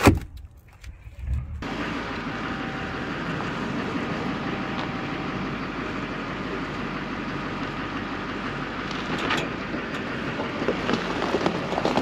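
A sharp knock, then a pickup truck's engine idling steadily from about a second and a half in.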